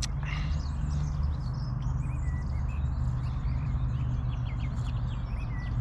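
Small birds chirping with short repeated calls over a steady low rumble. There is a brief sharp knock at the very start.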